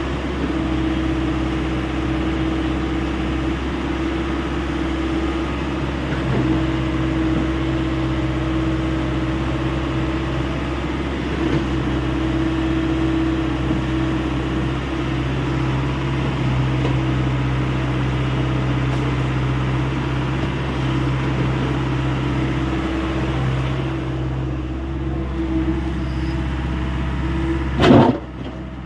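Hyundai 85A SMART excavator's diesel engine running steadily with a constant hydraulic hum. Near the end there is one short, loud knock, and the sound is quieter after it.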